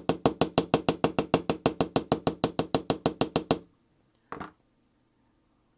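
A small hammer tapping rapidly and evenly on tiny metal rivets in a model motorcycle chain jig held in a bench vise, peening the rivet heads flush so the links stay on. It goes at about nine taps a second, stops sharply after about three and a half seconds, and is followed by a single short knock.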